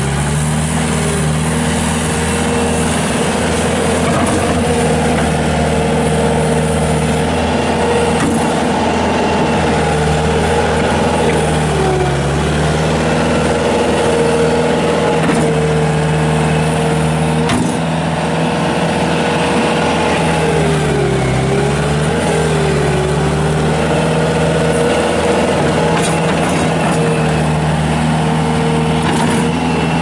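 Bobcat S220 skid steer loader's diesel engine running steadily at working revs. Its pitch sags briefly a few times as the machine drives and pushes its bucket into a dirt pile.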